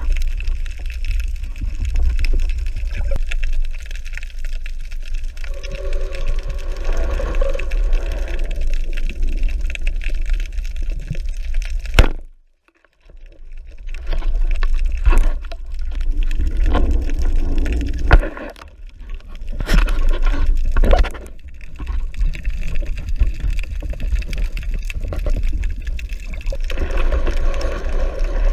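Water sound as picked up by a spearfisher's camera in the water: a steady low rumble with stretches of gurgling and bubbling. Sharp clicks come twice, each followed by a moment where the sound drops out.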